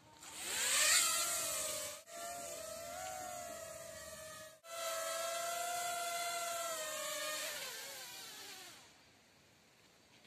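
Small toy quadcopter drone with propeller guards, its motors and propellers whining. The pitch climbs as it spins up at the start, holds steady with two brief breaks, then falls away as the motors wind down and stop about eight seconds in.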